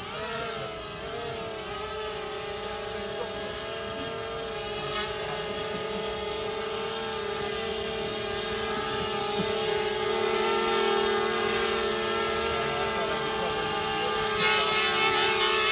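Small quadcopter's electric motors and propellers whining steadily in a low hover. The pitch wavers in the first second or so, then holds steady, growing louder in the second half and again near the end.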